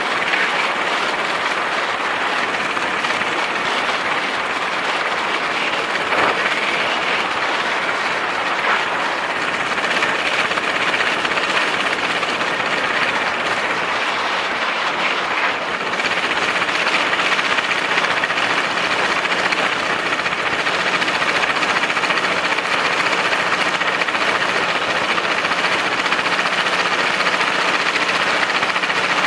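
Paramotor's backpack engine and propeller running steadily in flight, a constant drone under a broad rushing noise.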